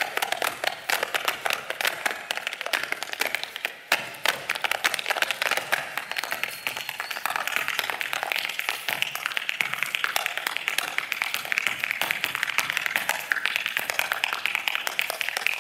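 Irish hard shoes and tap shoes striking the stage floor in fast rhythmic steps, with no music. Audience applause and cheering build up under the steps from about halfway.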